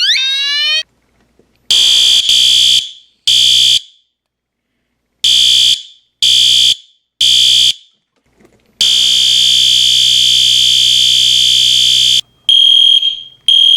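Fire alarm horns sounding one after another, each cut straight in. First the end of a rising whoop sweep, then a horn beeping in the temporal-3 evacuation pattern: three half-second blasts, a pause, three more. Then a steady horn tone for a few seconds, and finally a different-sounding horn pulsing about once a second.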